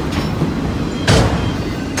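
Tail end of a freight train rolling past, the wheels of its last autorack car rumbling on the rails, with one loud sharp clack about a second in.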